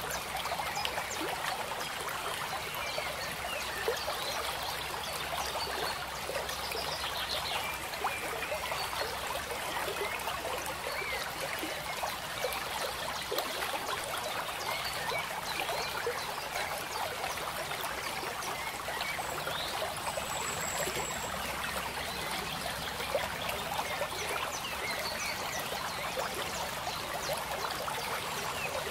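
Steady trickling of running water, like a small stream, with a few faint high chirps now and then.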